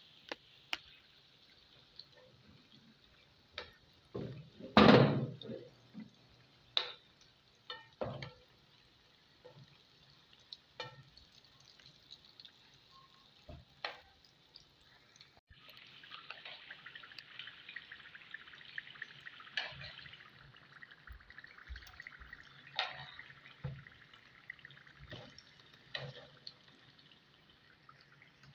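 Spring rolls deep-frying in hot oil: a steady sizzling hiss with bubbling, stronger in the second half. A metal spoon clicks against the pan now and then, with one loud knock about five seconds in.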